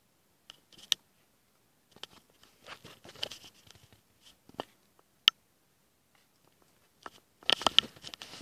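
Scattered sharp clicks and crinkly rustles of an object handled close to the microphone, with single sharp clicks about a second in and about five seconds in, and a denser run of crackling near the end.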